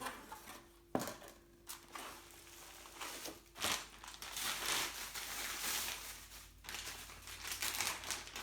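Packaging being crinkled and torn open, irregular rustling with a couple of sharp knocks, as a new bike fork is unwrapped.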